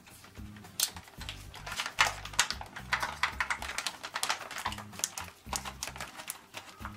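Background music with a bass line, over a run of light metallic clicks and taps from a sheet-metal exhaust-fan housing being handled and a screwdriver turning a worm-drive hose clamp on the fan's duct.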